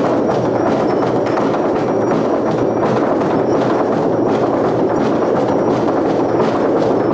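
Several wooden pestles beating a long wooden trough in a dense, steady clatter of overlapping wooden knocks.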